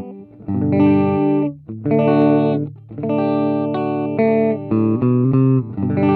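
Les Paul Standard electric guitar on its middle pickup position, played through the clean channel of a Joyo R-15 preamp pedal. Clean chords are struck and left to ring in short phrases, with brief gaps between them.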